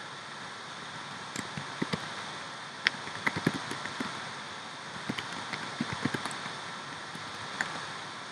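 Scattered light clicks in small clusters, as from working a computer, over a steady background hiss.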